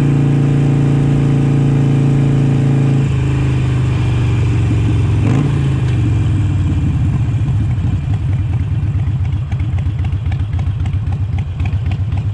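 2013 Harley-Davidson Sportster Iron 883's air-cooled V-twin engine, heard from the rider's seat: running steadily at cruise, then the throttle closes about three seconds in and the revs fall away as the bike slows. For the last few seconds it settles into a loping idle with a pulsing beat.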